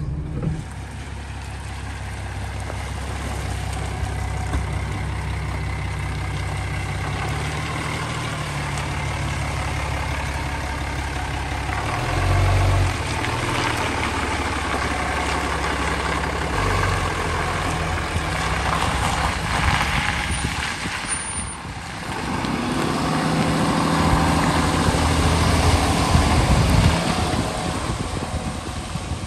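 Ram 3500 pickup with a Cummins diesel, carrying a truck camper, driving past on a wet gravel road: the engine runs steadily under the noise of tyres on gravel and water. It swells loudly about twelve seconds in and is loud again near the end as it passes close.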